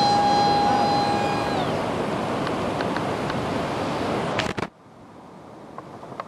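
Jet aircraft passing, a loud roar with a high engine whine that slides down in pitch about a second and a half in. The roar cuts off suddenly near the end, leaving a faint hiss with a few light clicks.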